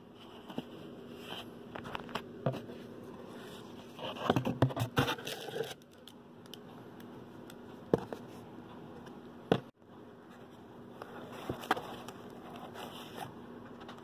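Cardboard box being handled while a twisted cord is pulled through holes in its sides: scraping and scratching, with a dense run of scrapes and knocks about four to six seconds in and single sharp knocks near eight and nine and a half seconds. A steady low hum runs underneath.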